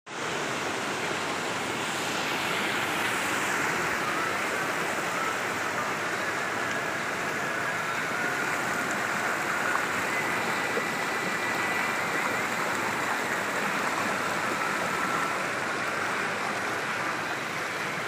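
Rushing water of a rocky mountain stream, a steady, even hiss that holds throughout.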